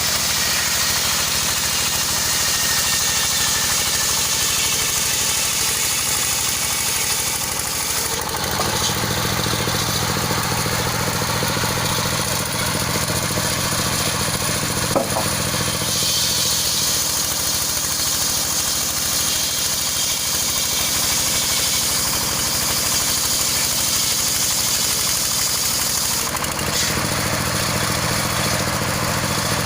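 A circular sawmill and the engine driving it run steadily; the deep tone grows fuller about eight seconds in and changes again near the end, with a single sharp click about halfway through.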